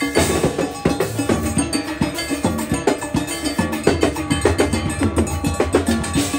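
Live steel band playing: steel pans ring out a melody over a busy percussion beat, with many strikes each second.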